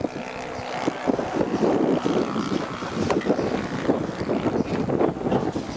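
Wind buffeting the microphone outdoors: an uneven, gusting noise with no clear engine tone.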